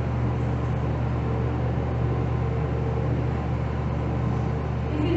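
A steady low mechanical hum with a faint higher tone running through it, even in level throughout.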